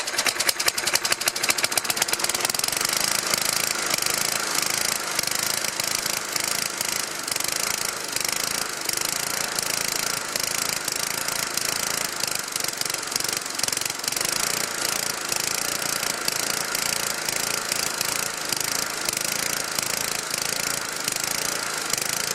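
Old Briggs & Stratton single-cylinder lawn mower engine running steadily but roughly. The owner puts the rough running down to a need for a good cleaning, and perhaps a governor that needs looking at.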